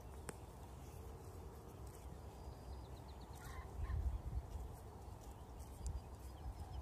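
Horse grazing close by, cropping and chewing grass in faint crackles, over a low rumble of wind on the microphone. A short bird call comes about three and a half seconds in.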